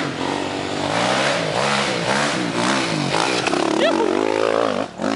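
Dirt bike engine revving up and down over and over as it rides along a gravel trail, its pitch rising and falling with the throttle. It drops away briefly near the end and then comes back.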